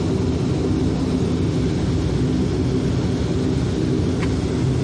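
Cabin noise inside a taxiing turboprop airliner: the engines and propellers give a steady, even hum.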